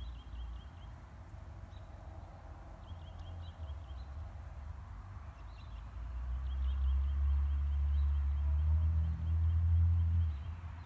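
Wind rumbling on the microphone, swelling louder for a few seconds after the midpoint and dropping near the end. Over it a bird calls in short series of rapid, high ticking notes, several times.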